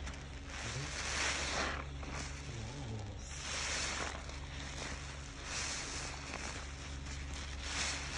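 A soap-soaked sponge squeezed and worked through thick suds, giving a wet, fizzing squelch about four times, the first one longest. A steady low hum runs underneath.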